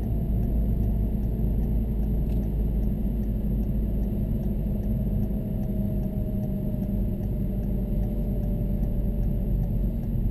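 Citroën DS3 driving at speed, its engine and road rumble heard from inside the cabin. The engine note eases slowly downward through the second half.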